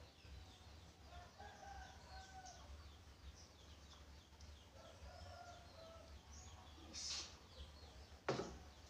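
Faint chickens calling twice, each call about a second long, with small birds chirping now and then. A sharp knock sounds near the end.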